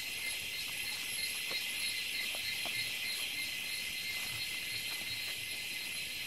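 Steady, high-pitched drone of a jungle insect chorus, with a few faint footsteps on the forest floor.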